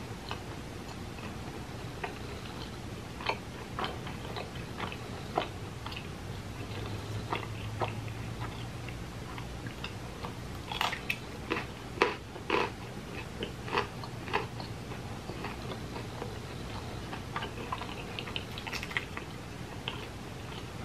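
A person biting and chewing pizza close to the microphone: irregular clicky mouth noises, loudest around eleven to thirteen seconds in, over a faint steady low hum.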